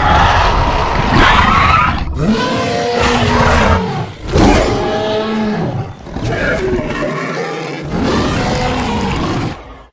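Made-up Indoraptor dinosaur roar sound effects: a run of about five roaring, screeching calls, each a second or two long, whose pitch bends up and down. They are cut together with brief breaks and stop abruptly at the end.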